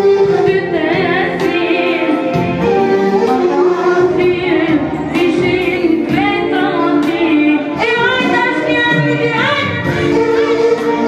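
Music: a song with a woman singing a gliding, held melody over an accompaniment.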